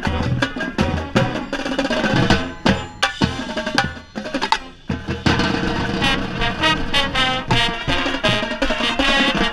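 Marching band playing its show, led by quads (tenor drums) struck close by in quick strokes, over sustained brass chords.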